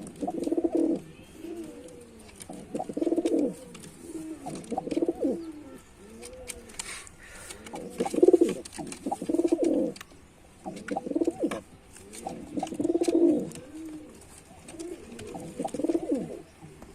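Male domestic pigeon cooing: about ten low, rolling coo phrases, each a second or so long, coming every one to two seconds, with faint clicks in between.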